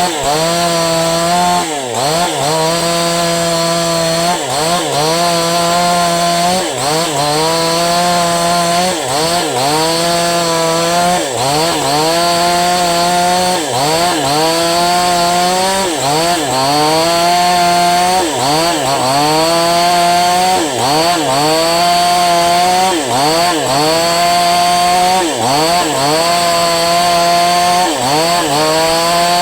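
Falcon Evo 9000 two-stroke chainsaw running at high speed, its engine note dipping sharply and climbing back about every two seconds, over and over.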